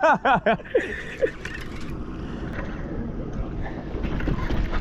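Steady running of a fishing boat's engine with wind and water noise. At the very start there is a short quick run of rising-and-falling pitched cries, which end within the first half second.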